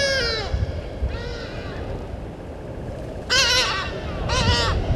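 An animal calling four times, each a quavering, bleat-like call of about half a second: one at the start, a fainter one about a second later, and two louder ones close together near the end.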